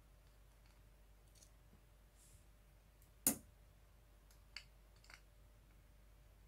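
Small metallic clicks of a screwdriver on the screws and metal housing of a head-drum motor stator as it is unscrewed: one sharp click a little over three seconds in, then two fainter ones.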